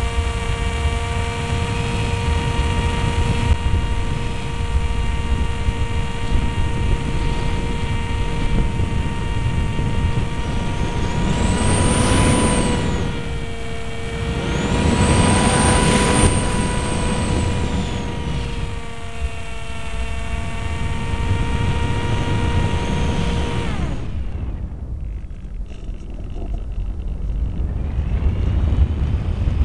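Multiplex Easy Star's electric motor and propeller whining steadily, picked up by the camera on the plane with wind rushing over the airframe. The wind rush swells twice in the middle as the plane banks hard. About six seconds before the end the motor cuts out, leaving only wind noise, then spools back up just before the end.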